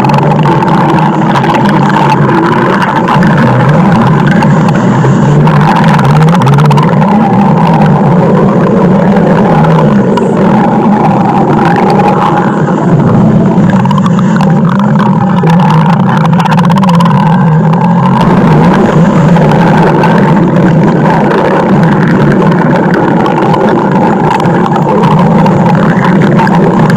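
Loud, unbroken stomach growling: a deep rumble with wavering gurgles over it that never lets up.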